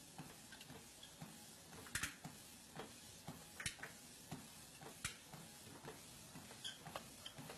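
Faint irregular taps and a few sharper clicks from exercise machines in use, over a low steady hiss.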